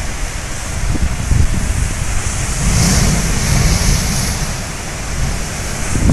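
Surf washing over a lava-rock shore, with wind buffeting the microphone. About three seconds in, a blowhole spouts: a rushing hiss of spray swells for about a second and a half and then fades.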